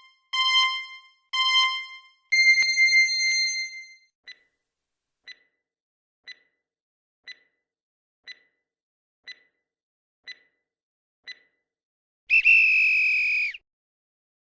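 Electronic countdown-timer sound effect for a quiz answer pause: two short beeps and a longer tone, then a short tick once a second, eight times. It ends about twelve seconds in with a loud, slightly falling electronic tone lasting just over a second.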